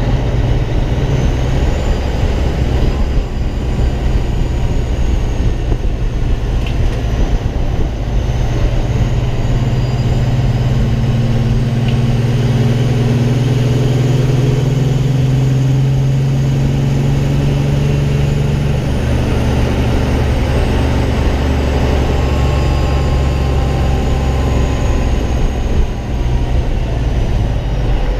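Peterbilt semi truck's diesel engine running steadily as the truck drives at low speed, a loud low drone that swells a little in the middle.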